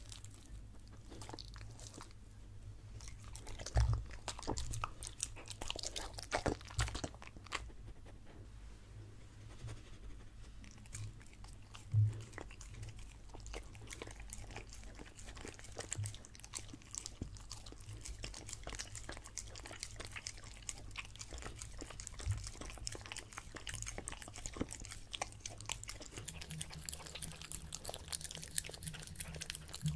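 A Samoyed dog chewing and eating close to the microphone: first a piece of soft sweet potato, then licking and smacking peanut butter off a spoon. There are many small wet mouth clicks, with a few louder knocks scattered through.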